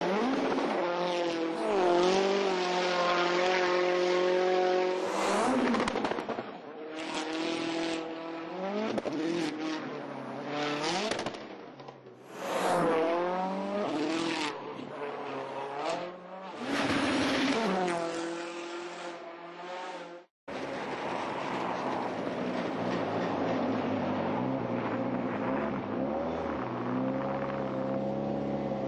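Citroën C4 WRC rally car engine revving hard through the gears at speed: the pitch repeatedly climbs and drops at each shift, and the car comes close and fades away several times. About two-thirds of the way in the sound cuts out for a moment and gives way to a steadier, lower engine note that climbs a little near the end.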